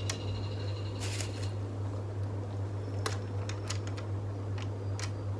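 Scattered clicks and light rattles of selfie-stick tripod and ring-light parts being handled and fitted together, with a short cluster about a second in and several more a few seconds later. A steady low hum runs underneath.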